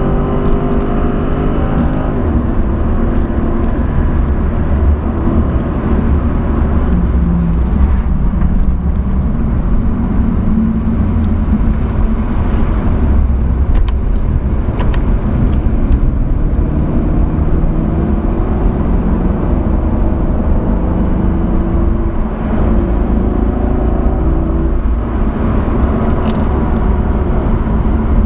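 Dodge Charger SRT8's Hemi V8 heard from inside the cabin on a track lap, with a steady low road rumble beneath. It starts at high speed, falls away as the car slows hard for a corner in the first seconds, runs on at part throttle, then rises in pitch as it pulls out of the bend near the end.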